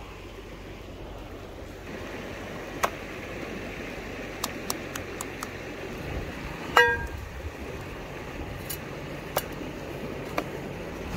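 Camp-cooking handling sounds over a steady rushing hiss: scattered sharp clicks and one loud ringing clink of metal cookware nearly seven seconds in.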